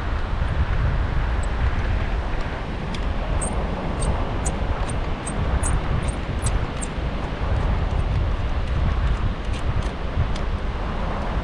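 Wind buffeting the microphone in a steady low rumble, with a quick run of small clicks about three to seven seconds in.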